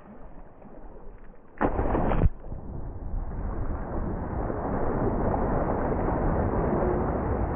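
A person jumping feet-first into a muddy pond: one heavy splash about one and a half seconds in, then water churning and sloshing steadily over the camera, muffled.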